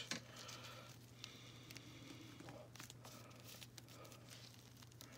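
Near silence: faint small clicks and rustles of hands working a plastic fashion doll's boot, over a low steady hum.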